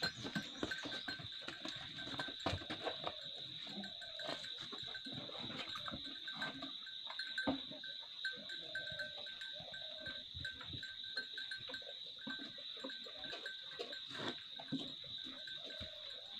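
Cows moving about in a dirt yard, with many short knocks and clicks. A steady high-pitched whine runs underneath.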